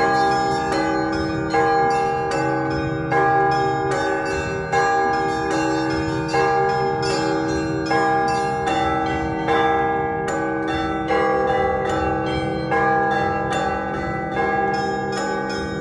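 Russian Orthodox church bells ringing a festive peal: a heavy stroke about every second and a half, with medium bells between and small bells chiming rapidly in a repeating pattern.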